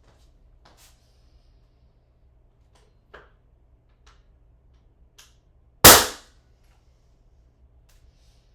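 Ramset powder-actuated nail gun firing once: a single sharp, loud bang about six seconds in that dies away within half a second. A few faint clicks and knocks come before it as the tool is handled.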